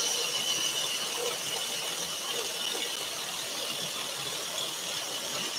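Scroll saw running steadily, its fine modified-geometry blade cutting a pierced pattern through a thin wooden panel, with a constant high whine over the cutting noise.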